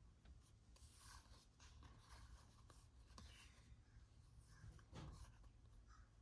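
Near silence with faint rubbing and sliding of trading cards being handled and flipped through.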